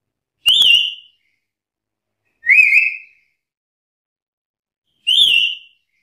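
Black-capped lory giving three short, loud whistled calls a couple of seconds apart, each rising sharply and then wavering.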